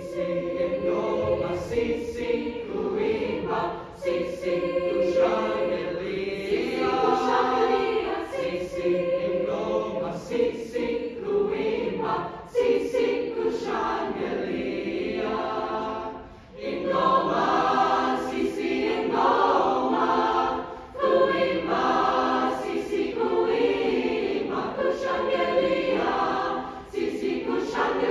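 Mixed-voice high school choir singing in sustained chords, phrase after phrase, with short breaks between the phrases.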